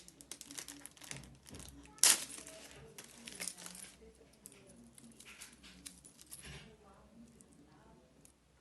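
Packaging and small items being handled during an unboxing: crinkly rustling with one sharp click about two seconds in, then a few quieter ticks.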